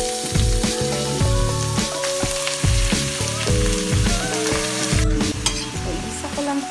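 Raw ground pork sizzling in hot oil in a stainless steel pan as it is added and stirred with a spatula, over background music with a steady beat.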